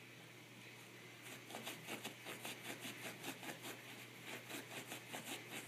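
Small dog pawing and scratching at the carpet under a low stand, trying to dig out hidden treats: a quick run of scratches, about five a second, starting about a second in.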